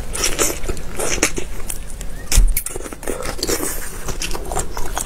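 Close-miked eating of whole shrimp: irregular wet clicks and crackles of biting, chewing and shells being pulled apart by gloved fingers, with a single dull thump a little past halfway.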